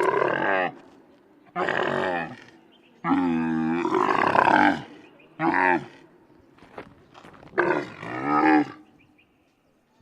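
Camels calling: about five loud, pitched bellowing calls with short pauses between them, the longest lasting nearly two seconds near the middle.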